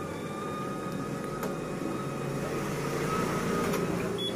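Canon iR 3300 photocopier running a single-sided copy job: a steady mechanical whir of its motors and paper rollers with a steady whine over it and a few light clicks.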